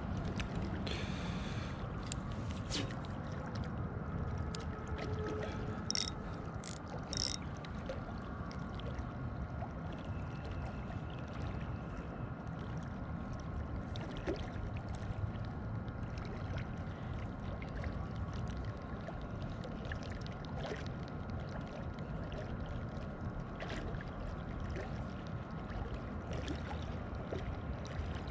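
Ultralight spinning reel cranked steadily to retrieve a lure, its gears giving a faint steady whine over low outdoor background noise, with a few soft clicks along the way.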